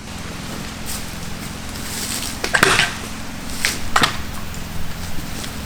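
Sharp woody cracks and knocks from a felled tree hung up in the branches of other trees, several in a row with the loudest a little over two seconds in, over a steady low hum.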